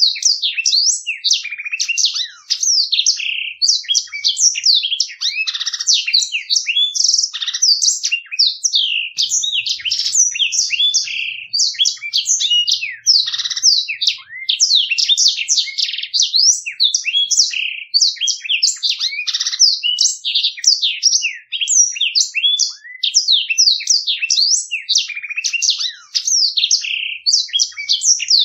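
Blackthroat (black-throated canary) singing a long, unbroken rolling song: rapid, clear chirps and trills following one another with no pause.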